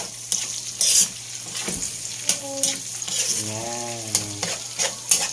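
Stir-frying in a wok: pork, onion, garlic and bell pepper sizzling in hot oil while a spatula scrapes and knocks against the wok's metal in repeated strokes. Twice in the middle, a short wordless voice sound rises over the sizzle.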